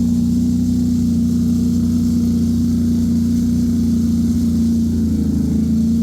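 ATV engine running at a steady speed, its pitch held level throughout.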